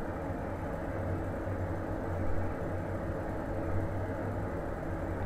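Steady low hum with a faint hiss of background noise and no distinct events: room tone between narration lines.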